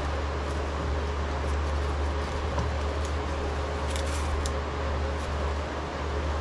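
Blue painter's tape being peeled and unwound from a glued segmented wooden ring, with a few short ripping crackles, the clearest about four seconds in. A steady low hum runs underneath throughout.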